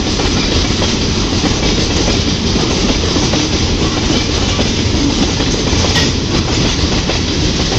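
Freight train tank cars rolling past, their steel wheels running steadily on the rails.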